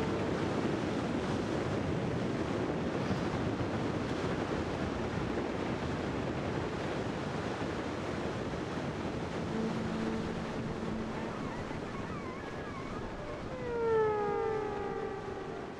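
Ocean surf washing and breaking, with wind on the microphone. Near the end a few falling tones come in, the loudest about two seconds before the end, sliding down in pitch.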